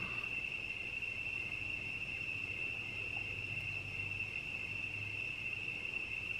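Crickets chirring in a steady, unbroken high-pitched chorus.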